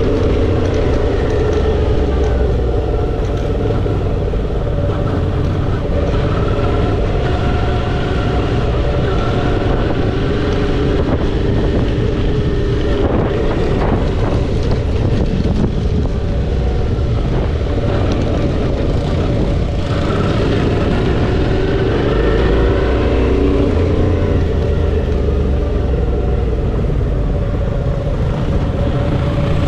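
Suzuki V-Strom 650 XT's 645 cc V-twin engine running steadily while riding a dirt farm track, its note shifting a little up and down with the throttle.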